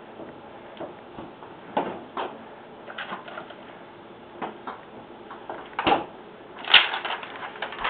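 Handling noises at a refrigerator: scattered knocks and clicks as a plastic juice bottle is taken out and moved about, with the loudest knock about seven seconds in.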